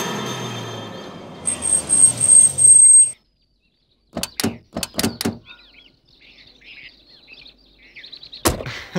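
A swelling transition sound with a steady high tone that cuts off about three seconds in. After a second of silence come a few sharp clicks and knocks of car doors opening, with birds chirping faintly and a louder door thunk near the end.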